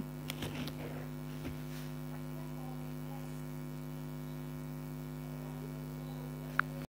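Steady low electrical hum, with a single short click near the end.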